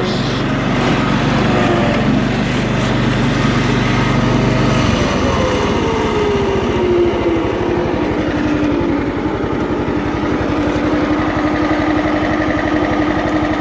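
Kohler Command 12.5 hp single-cylinder engine on a Cub Cadet 1320 hydrostatic lawn tractor, running fast and then throttled back to idle about five seconds in. A whine falls in pitch and settles into a steady tone at idle, which the owner hears as the hydrostatic transmission making more noise at idle than the engine.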